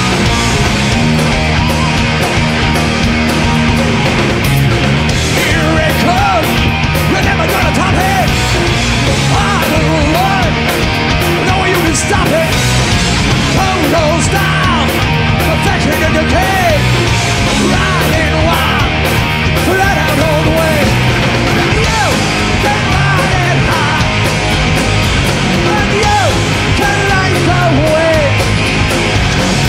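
Loud rock music with a steady drum beat, playing without a break.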